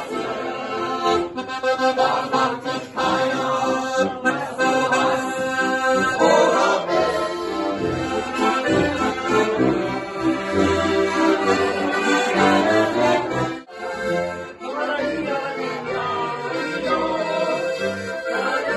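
Diatonic button accordions (Steirische Harmonika) playing a folk tune together, with a rhythmic bass and chord accompaniment under the melody.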